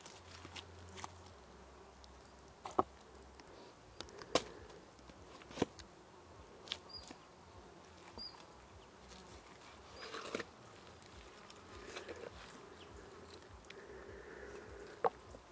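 A knife cutting and pulling roasted lamb meat off the bone: scattered sharp clicks and taps. An insect buzzes faintly on and off in the second half.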